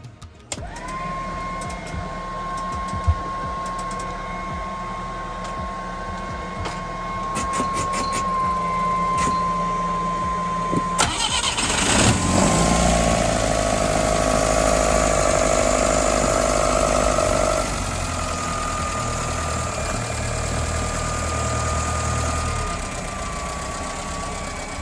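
A steady high tone sounds for about ten seconds. Then the sailboat's inboard engine cranks, catches about eleven seconds in, and runs, turning the propeller shaft through its freshly repacked packing gland. The engine eases to a slightly quieter, steady run a few seconds later.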